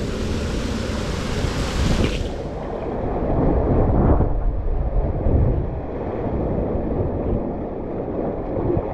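Rushing water and wind buffeting the microphone as an inner tube speeds down a water slide. A bright hiss of spray cuts away about two seconds in, leaving a lower rumbling rush that swells around the middle.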